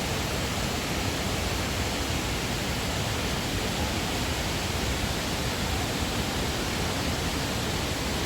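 Putna river's waterfall: fast water rushing over rocks, a steady, even noise that does not change.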